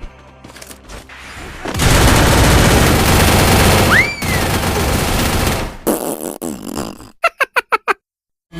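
Edited run of meme sound effects: about four seconds of loud, dense crackling noise like rapid gunfire, with a short whistle rising and falling in the middle, then a quick string of about six wobbling tones that cuts off abruptly.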